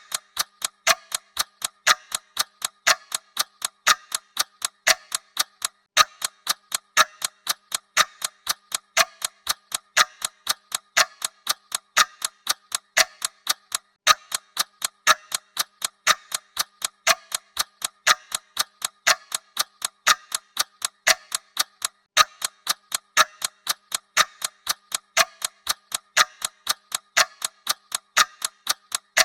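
Clock ticking sound effect: steady, even ticking at a constant rate, a slightly stronger tick about once a second.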